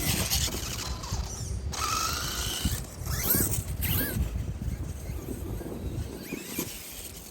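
Electric motor and drivetrain of a Traxxas T-Maxx RC monster truck whining as it is driven, the pitch rising and falling as the throttle is worked, loudest from about two to four seconds in.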